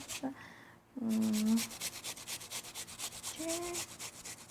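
Rapid, even scraping strokes, about seven a second, starting about a second in, with a short hum about a second in and another near three and a half seconds.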